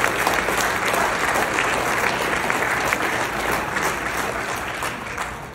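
Audience applauding, with one pair of hands clapping close to the microphone; the applause dies down near the end.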